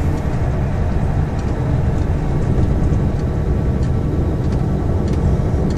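Steady engine and road rumble inside a vehicle's cab cruising at motorway speed.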